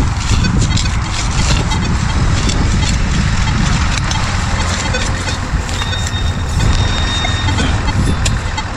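Shovel digging into soil to recover a metal detector target, with repeated scrapes and chops over a steady low rumble.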